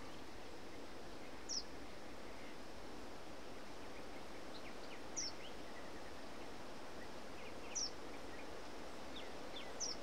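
Steady hiss of natural background ambience, with a bird repeating a short, high, falling call four times, about every two and a half seconds, and a few fainter chirps in between.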